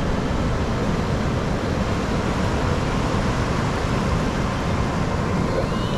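Ocean surf rumbling steadily as waves break and wash up the beach.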